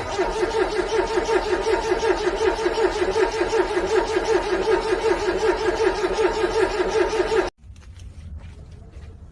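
Car starter motor cranking a cold engine: a steady whine that pulses several times a second with the compression strokes, starting suddenly and cutting off abruptly about seven and a half seconds in without the engine catching.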